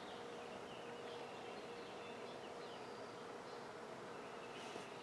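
Faint room tone with a faint steady hum and a few faint high chirps; the mixer mill is not running.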